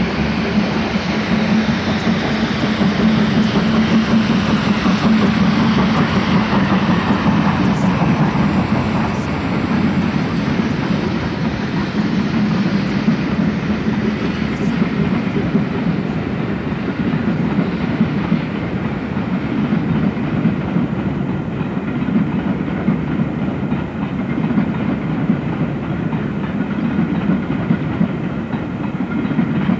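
A Great Western Railway King-class steam locomotive working a passenger train past, its exhaust mixed with the train rolling over the track. The higher part of the sound fades over the last third as the train draws away.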